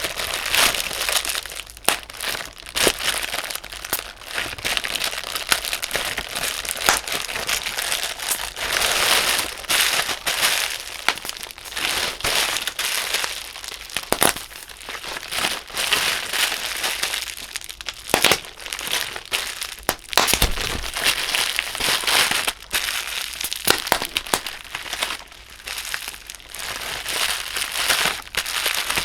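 Bubble wrap crushed and squeezed by hands in thick natural-rubber gloves: continuous plastic crinkling with many irregular sharp pops as the bubbles burst.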